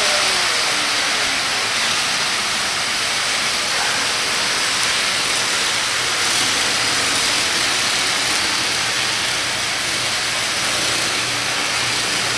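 HO-scale model trains running on the layout: a steady rushing hiss of wheels and motors on the track, with a faint steady hum coming in about halfway through.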